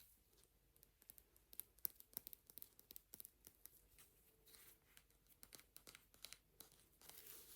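Makeup brush bristles worked close to the microphone: faint, crackly brushing with many small sharp ticks, then softer swishes near the end.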